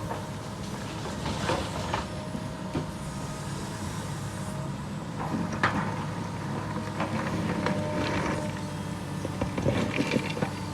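Heavy construction machinery engine running steadily, with metal clanks and knocks every second or two.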